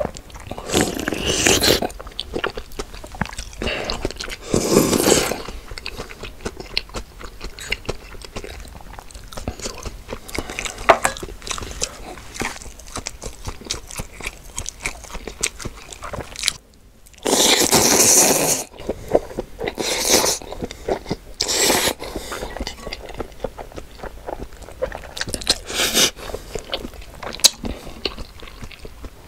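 Close-miked eating: a steady run of small crunching and chewing clicks, broken several times by loud noisy bites or slurps about a second long. The loudest comes about two-thirds of the way through.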